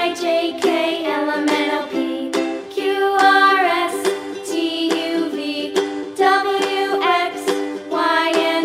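Background music: an upbeat instrumental children's tune with a steady run of plucked notes.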